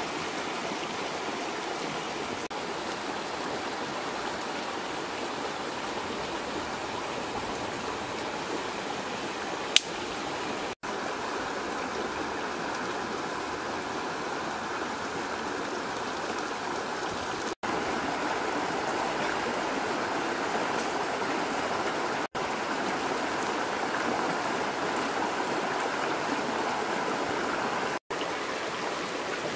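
A shallow river rushing over rocks in a steady wash. There is one sharp click about ten seconds in, and the sound cuts out for an instant four times.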